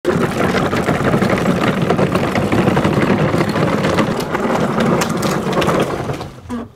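A kids' quad bike and a towed wheeled trolley rolling over loose gravel: a steady crunching rattle of tyres and small wheels on stones, fading away near the end.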